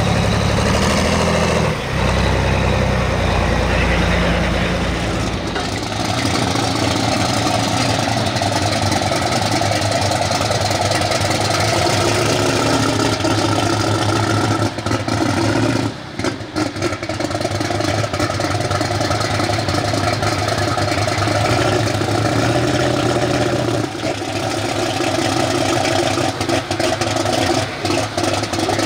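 Super stock pulling tractor's diesel engine running at a fairly steady pitch, loud and close. A heavier deep rumble drops away about six seconds in.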